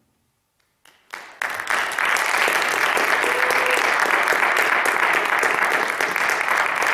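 Audience applauding: a moment of silence, a few scattered claps about a second in, then full, steady applause from many people.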